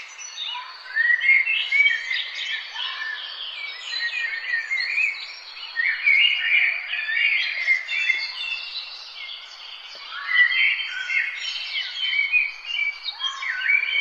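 A morning chorus of many songbirds singing and chirping at once, their short chirps, trills and warbles overlapping without a break.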